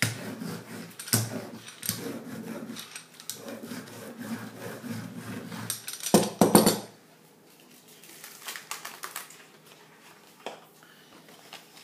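Rubber brayer rolled back and forth over a sheet of paper laid on an inked printing plate, a repeated rolling rub with small clicks. About six seconds in it is set down with a short, louder clatter, then a hand rubs softly over the paper.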